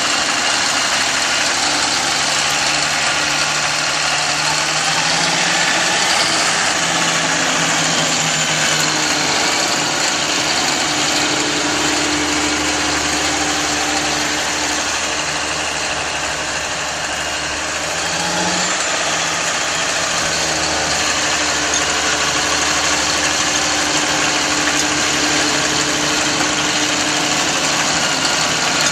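Snowmobile trail groomer tractor's engine running steadily as it works a sand fill on the trail; the engine note drops a little past the middle and then picks back up.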